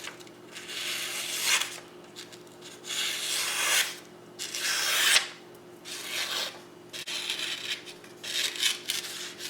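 A knife blade slicing through paper in about five long scraping strokes. It is a Victorinox Alox Hunter Pro lockback blade being tried for sharpness.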